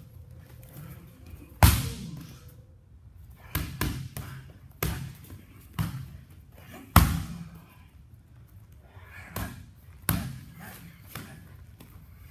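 Boxing-glove punches and shin kicks smacking into Thai pads and a belly pad, about ten sharp impacts at uneven intervals as a long Muay Thai combination is thrown at full speed; the hardest smacks come about two seconds and seven seconds in.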